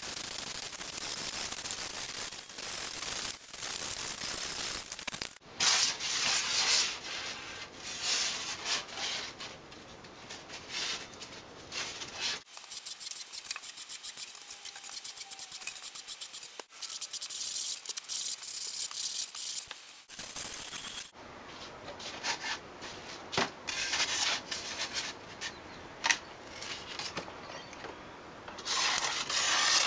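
Sanding block rubbed back and forth over expanded polystyrene foam, a rough scratchy sanding in repeated strokes, quieter for a few seconds in the middle.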